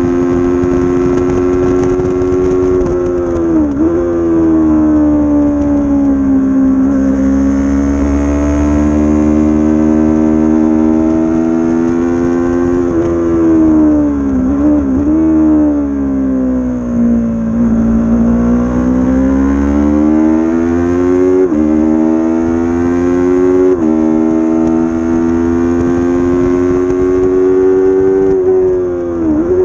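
300-class racing motorcycle engine at speed, its revs repeatedly climbing and dropping, with sudden dips and steps in pitch as it slows for corners and changes gear.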